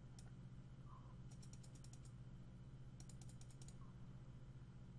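Faint computer keyboard typing: two quick runs of keystrokes, about a second and a half in and again about three seconds in, over a low steady hum.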